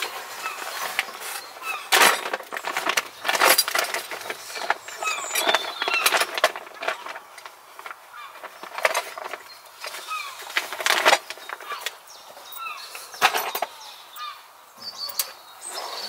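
Intermittent clatter, clicks and knocks of hand tools being got out and handled, with small birds chirping in the background.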